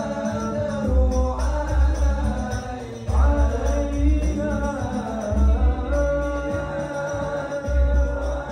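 Music: a solo voice singing a melodic, chant-like song over a deep, regular drum beat.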